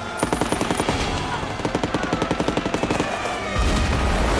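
War-film battle sound effects: rapid machine-gun fire, about ten shots a second, for roughly three seconds. A deep, heavy rumble sets in near the end.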